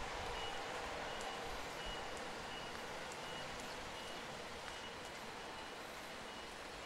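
An electronic warning beeper sounding short, high beeps at a steady pace of about three every two seconds, over the steady hum of city street traffic.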